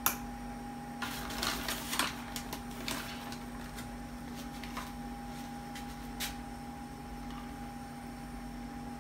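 Light clicks and rustles of shredded mozzarella being scooped by hand into a measuring cup, most of them in a cluster a second or two in and one more a little after halfway, over a steady hum.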